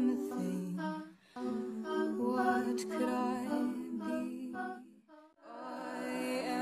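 A song with a sung vocal line that breaks off briefly about a second in and again about five seconds in.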